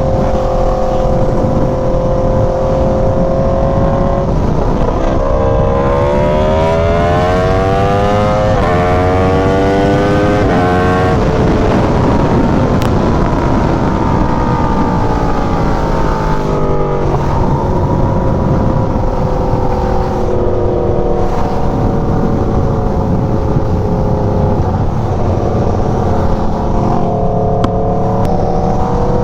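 Aprilia Tuono V4's V4 engine under a rider pulling through the gears: the engine note climbs in pitch, drops sharply at each upshift, then holds at a steadier cruise before climbing again near the end. Heavy wind rush runs underneath.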